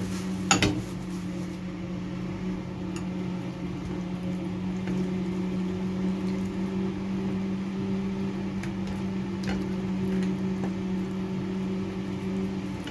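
A steady electrical hum, like a kitchen appliance or fan motor, under faint wet squishing from hands rubbing masala paste into raw chicken pieces. There is a sharp knock about half a second in.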